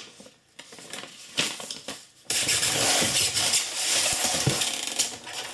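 Soft rustling of a paper instruction booklet. About two seconds in, a sudden, much louder dense rubbing and rustling of polystyrene foam packaging being handled in its box, with a few knocks.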